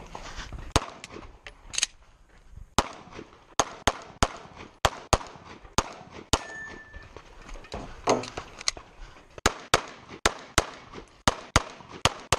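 Semi-automatic pistol firing a string of rapid shots, many in quick pairs a few tenths of a second apart, with a short pause partway through as the shooter moves between positions.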